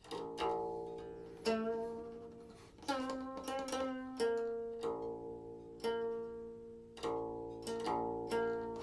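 Silk-string guqin being plucked: single notes, each ringing and slowly fading, with a quick run of notes around three to four seconds in.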